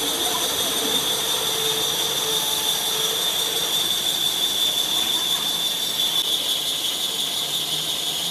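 Metal lathe turning an engine cylinder sleeve, the cutting tool giving a steady high-pitched squeal over the hiss of the cut. A fainter lower tone underneath fades out about three and a half seconds in.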